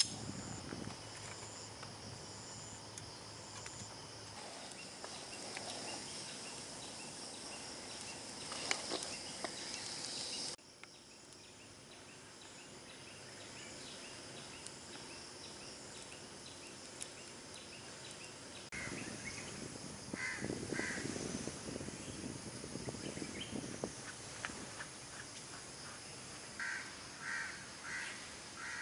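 Wood fire crackling in a Thouswinds tent stove over a steady high hiss. In the last third a bird calls in short, harsh repeated notes, two groups of about four, the second near the end.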